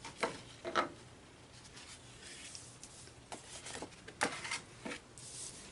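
Paper and cardstock being handled on a table: a handful of short rustles and light taps as pieces are picked up and set down, with a brief sliding hiss near the end.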